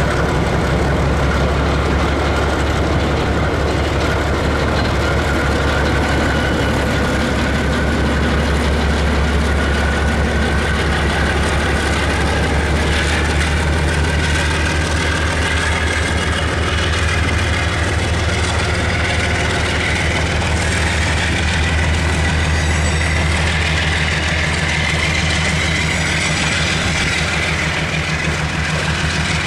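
Two diesel-electric locomotives of a freight train pulling away, their engines running with a steady low drone and a whine that slowly rises in pitch, then container wagons passing.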